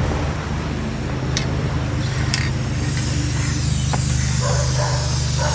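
Riding lawn mower engine running steadily, with an aerosol spray paint can hissing from about three seconds in; a couple of sharp clicks before that.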